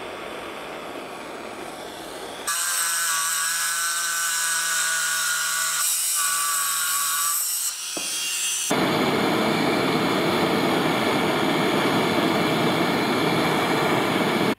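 A gas torch hissing with a steady flame at brass parts being brazed. About two and a half seconds in, this gives way to a power drill running with a steady high whine at a brass strip clamped in a vise. From about nine seconds, a gas torch hisses again, louder, heating a brass piece.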